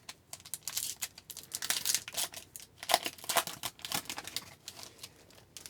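Hockey card pack wrapper crinkling and tearing as it is opened by hand, a dense run of crackles that thins out near the end.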